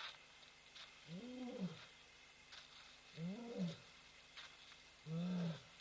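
Lion vocalising in a series of three short moaning calls about two seconds apart, each rising and then falling in pitch.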